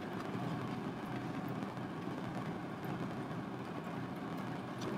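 Steady low background rumble with a few faint light ticks.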